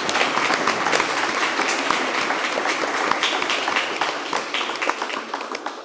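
An audience of about a hundred applauding: a dense, steady stream of hand claps that tails off near the end.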